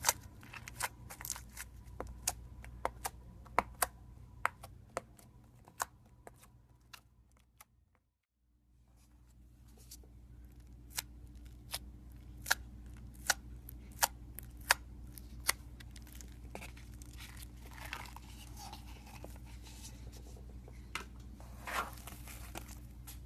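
Slime being pressed and poked, giving sharp clicks and pops about one or two a second, with a few longer squishing sounds later on. The sound fades out briefly about eight seconds in, then the clicking resumes.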